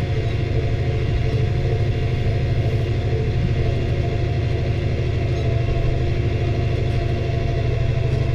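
New Holland T6030 tractor's diesel engine running steadily under load, heard from inside the cab as it pulls a rock picker: a steady low drone.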